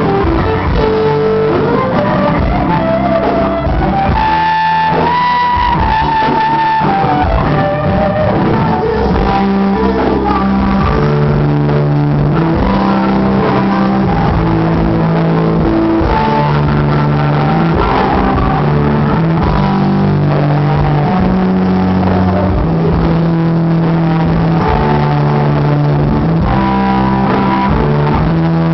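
Live rock band playing loudly, with guitars over a steady bass line and a singer on the melody.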